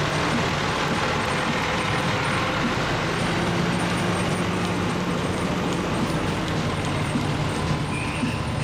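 Fire engine's engine running steadily as the truck rolls slowly past.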